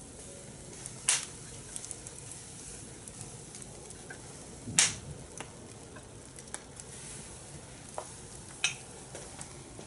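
Corn grilling over a fire in a fire pit: a steady sizzling hiss with sharp crackling pops. The three loudest pops come about a second in, just before the middle, and near the end.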